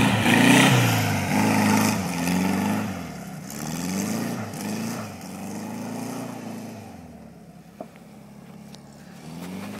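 Classic Volkswagen Beetle's air-cooled flat-four engine revving up and down again and again as the car is drifted on snow. Loudest as it passes close in the first few seconds, then fading as it slides away.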